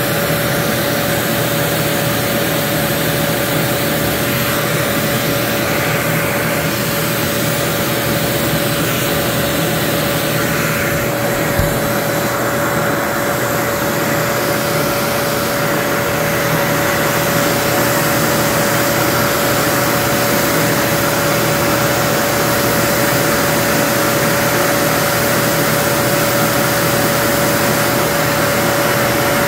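Steady drone of an electric air-blowing motor: a constant whine over an even whooshing hiss, getting slightly louder about halfway through.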